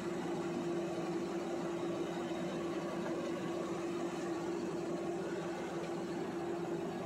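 A steady mechanical hum with one constant low tone, unchanging throughout.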